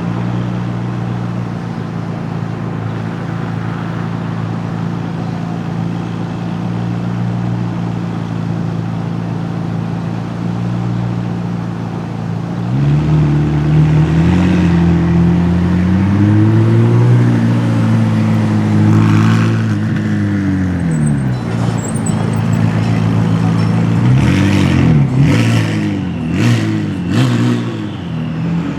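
A car engine idling steadily, then revving up about twelve seconds in and pulling away, its pitch rising and falling through long sweeps. Near the end come several short, quick rises and falls in pitch.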